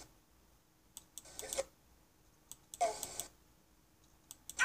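Short shouted calls, three in all, about a second and a half apart, with faint clicks in between.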